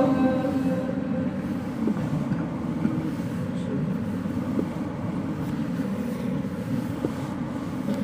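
A male reciter's chanted Quran recitation trails off at the very start, leaving a steady low rumble of background noise.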